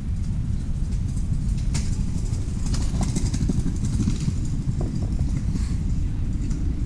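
Steady low outdoor rumble, with a few faint clicks and rustles about two to three seconds in.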